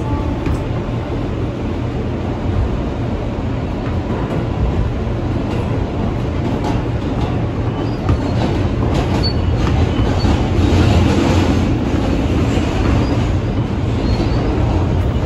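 Interior of an R160B New York subway car running, a steady loud rumble of wheels and car body with scattered rail clicks, growing a little louder about halfway through.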